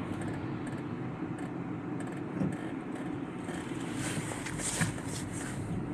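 Rainy outdoor street ambience: a steady low rumble of traffic with hiss, and a few short splashy hisses about four to five seconds in.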